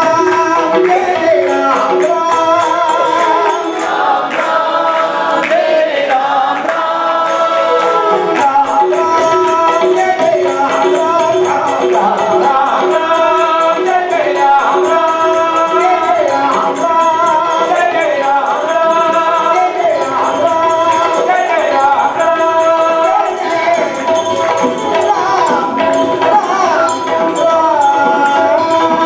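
Live Hindu devotional bhajan: male voices singing a chant-like melody over a harmonium's steady held notes, with a dholak drum and small hand percussion keeping the beat.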